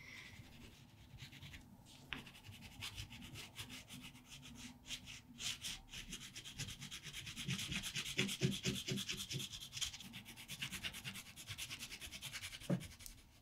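Caran d'Ache Neocolor II wax pastel rubbing on watercolour paper in quick, repeated short strokes, faint, growing busier from about halfway through.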